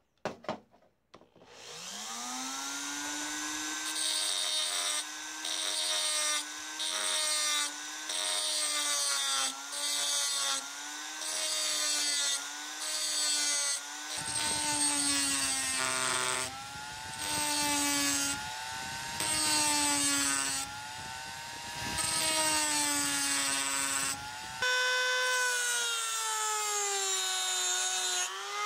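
Black+Decker rotary tool switched on and spinning up, then its diamond cutting disc grinding into a glass jar in repeated spells of a second or two. The motor's whine sags in pitch under each cut and recovers between them, and steps up to a higher speed near the end.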